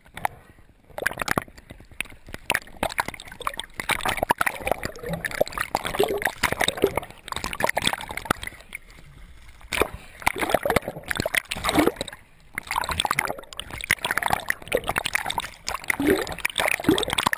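Water sloshing and gurgling around a camera held just under the surface, with irregular splashes and bubbling pops that come and go in surges.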